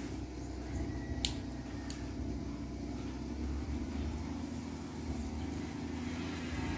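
Two light clicks, about half a second apart, as a control cable's inner wire and spring are handled, over a steady low mechanical hum.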